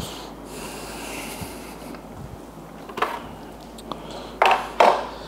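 A man handling a digital kitchen scale at a counter over steady room noise, with two short, sharp sniffs near the end.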